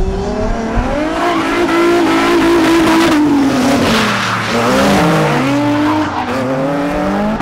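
Drift cars sliding in tandem, their engines revving up and down and overlapping while the tyres squeal. The tyre squeal is strongest in the middle.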